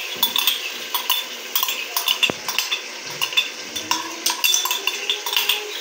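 A metal fork clinking and scraping against a ceramic mug and an aluminium cooking pot as yogurt is scraped out into the curry, in a quick irregular run of clicks.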